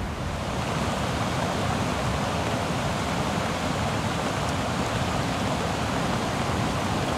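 Steady rush of white water pouring through a river weir pool, mixed with heavy rain falling.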